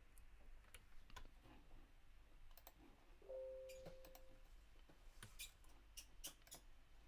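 Faint, scattered small clicks, with a brief steady tone about three seconds in that lasts about a second.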